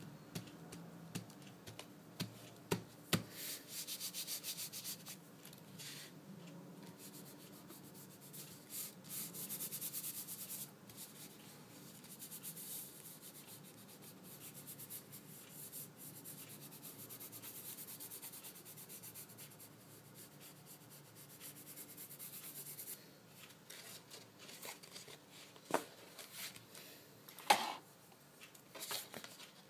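Hands rubbing and smoothing paper on a cutting mat, pressing a red paper cutout down onto white card: long stretches of scratchy rubbing, with a few sharp paper taps and snaps, the loudest near the end as the card is handled.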